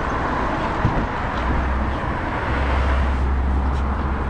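City street traffic noise with a steady low rumble, and one short knock about a second in.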